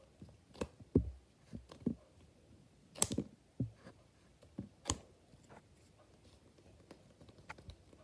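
Stretchy rubber monkey noodle fidget toy being stretched and handled, giving scattered soft taps and slaps, the two sharpest about three and five seconds in.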